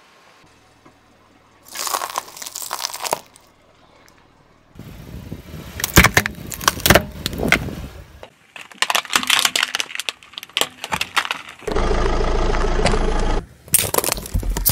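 Car tyre rolling over and crushing a series of small objects, heard as separate bursts of cracking, crunching and snapping. A loud steady drone runs for about two seconds near the end.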